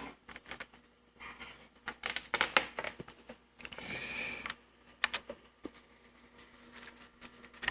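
Faint handling noise: scattered clicks and short rustles from a USB cable being plugged into an iPad and the tablet being handled, with a longer scrape about four seconds in.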